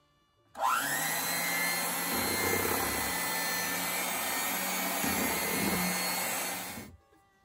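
Electric hand mixer switched on with a rising whine about half a second in, running steadily as its beaters churn whipped topping into pudding in a glass bowl, then switched off suddenly near the end.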